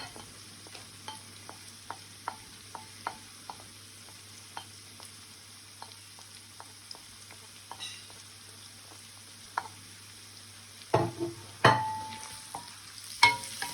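Fried onions and spices sizzling in oil in a pan, with scattered small crackles and pops. About eleven seconds in, a few louder knocks of a utensil against the pan, one of them ringing briefly.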